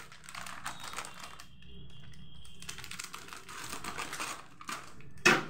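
Scissors snipping through a foil-lined plastic snack packet: a run of quick, crisp cuts with the crinkle of the packet, and a louder snap near the end.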